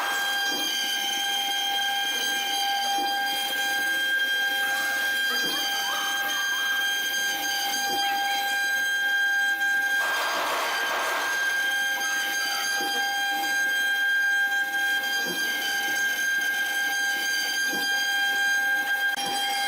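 CNC wood-carving router running, with a steady high-pitched whine of several held tones. A louder rushing burst of cutting noise comes about ten seconds in.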